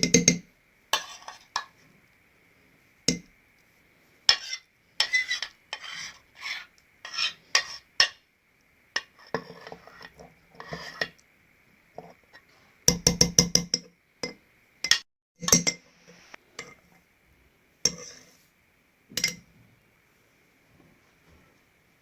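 A utensil clinking, tapping and scraping against a bowl and a glass jar as oil-coated dried figs are spooned into the jar. The knocks come irregularly, with two quick runs of rapid taps, one at the start and one about halfway through.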